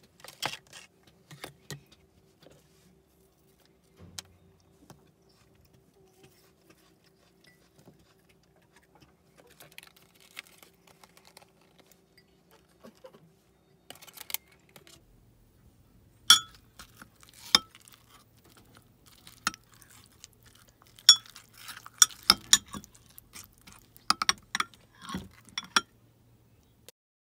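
Small clinks and taps of kitchenware on a stone counter, then a spoon clinking against a glass mug of yogurt and fruit. The spoon strikes come as a string of sharp clinks, several in quick succession, in the second half.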